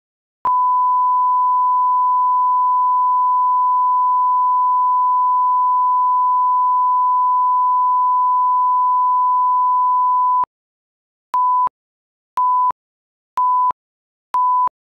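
Broadcast line-up tone: a steady pure 1 kHz reference tone held for about ten seconds with the colour bars, then cut off. It is followed by four short countdown beeps at the same pitch, one a second.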